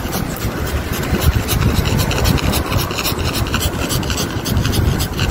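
Yorkshire terrier panting rapidly, about five breaths a second, over a low rumble of handling noise from the phone being carried at a walk.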